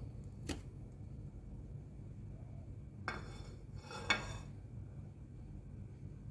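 Kitchen handling sounds at a large aluminium cooking pot: a sharp clink about half a second in, then two short clattering knocks around three and four seconds in.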